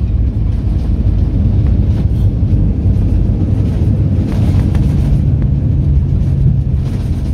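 Jet airliner rolling along the runway, heard from inside the cabin: a steady low rumble of the engines and the wheels on the pavement.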